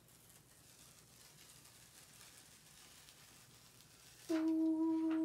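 Faint crinkling of a clear plastic carrier sheet being peeled off glitter iron-on vinyl. About four seconds in, a steady pitched hum sets in and holds for about a second, louder than the peeling.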